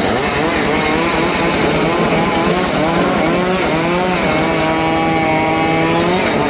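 Chainsaw running under load while cutting jowar wood. Its pitch wavers up and down for the first few seconds, holds steady, then drops near the end.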